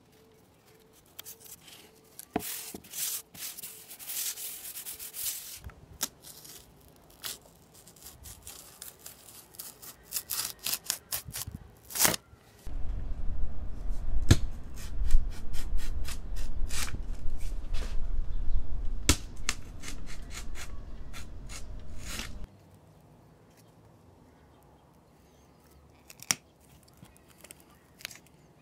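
Paper and corrugated cardboard being handled and cut with a utility knife: rustling, scraping strokes and sharp clicks. Through the middle stretch a loud low rumble sits under the cutting, starting and stopping abruptly.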